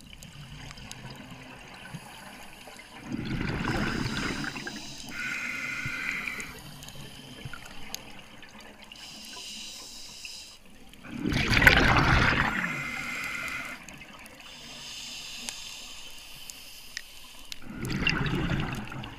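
Scuba diver breathing through a regulator underwater: three bursts of exhaled bubbles, each one to two seconds long and about seven seconds apart, the middle one loudest, with a quieter hiss of inhaling through the regulator between them.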